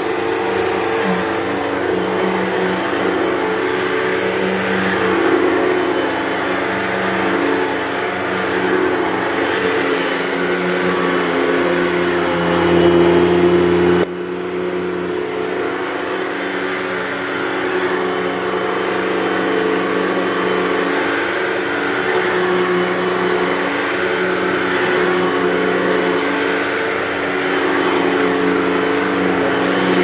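Hoover Total Home Pet upright vacuum running steadily, its brushroll turning on a freshly fitted belt as it picks up cat litter from carpet. The level drops abruptly about halfway through, then the motor carries on.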